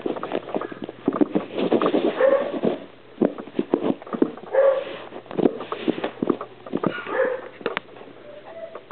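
Miniature schnauzer puppy playing rough with a hand: short whines and yips among quick, irregular scuffling and knocking sounds.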